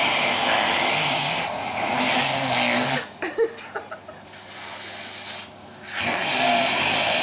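Vacuum cleaner motor running with a loud, steady whoosh. It cuts out about three seconds in, leaving a few clicks and a quieter hum, and comes back on about six seconds in.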